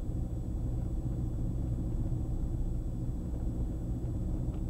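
Diamond DA42 NG twin turbodiesel engines running, a steady low drone heard inside the cockpit.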